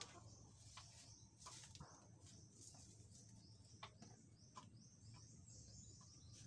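Near silence, with faint bird chirping in the background and a few soft clicks and rustles.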